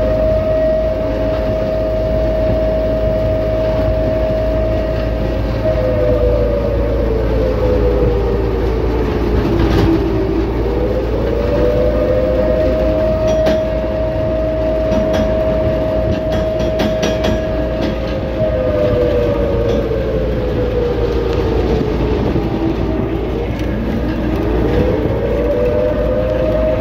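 Low rumble of a moving vehicle, under a loud two-note wail that holds steady, sinks slowly in pitch about ten seconds in, rises back, and sinks and rises again near the end.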